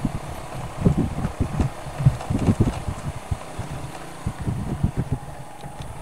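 Wind buffeting the microphone in uneven low gusts while a motorcycle runs underneath.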